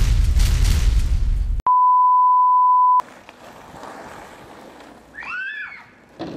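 A loud, noisy blast with heavy bass cuts off sharply and is replaced by a steady high beep tone lasting just over a second. A faint background hiss follows, with a short pitched call that rises and falls near the end.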